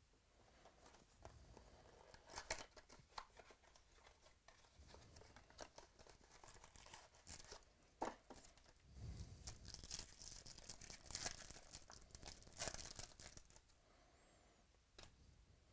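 Faint tearing and crinkling of a trading-card pack wrapper as it is ripped open, then cards rustling as they are handled, busiest about two-thirds of the way through.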